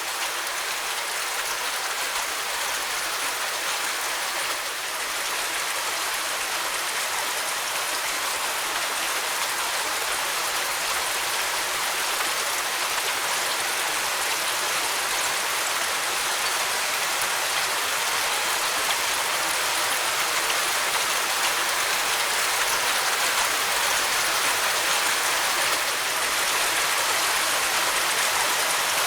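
Steady rain falling, an even hiss of drops without distinct patters or thunder, growing slightly louder.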